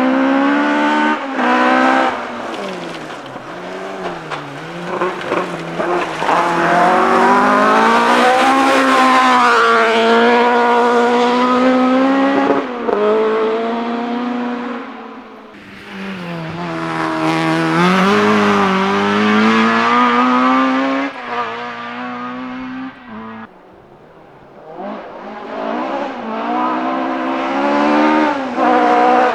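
Ford Escort Mk2 rally car engines revving hard and loud, the pitch climbing and falling again and again through the gear changes as the cars drive flat out. There are several separate runs, with the sound dropping away briefly twice in between.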